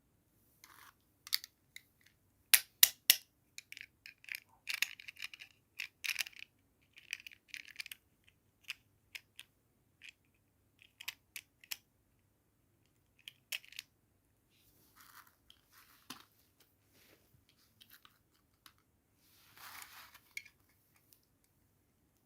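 Toy doll set and its plastic packaging being handled and unboxed: irregular sharp clicks, taps and short crinkly rustles, with the sharpest clicks a few seconds in and a longer rustle near the end.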